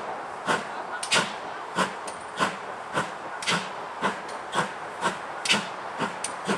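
Steam locomotive pulling away, its exhaust beats chuffing about twice a second and quickening slightly as it gathers speed.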